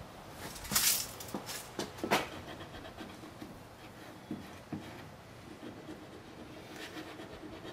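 Rubber eraser rubbing back and forth on textured plastic car trim, scrubbing off dried wax: a few short, louder scuffing strokes in the first two seconds, then faint rubbing.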